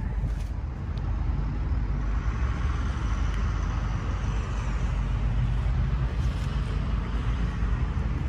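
Steady low hum of an idling vehicle engine, with a broader rush of traffic noise that swells and fades in the middle.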